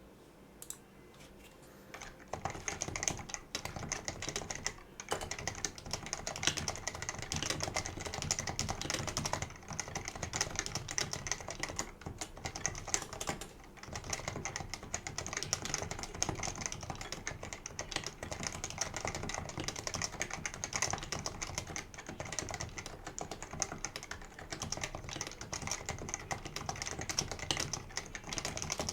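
Fast, continuous typing on a Leopold FC660C keyboard with non-lubed Topre switches. The keystrokes start about two seconds in and run on with only a couple of brief pauses.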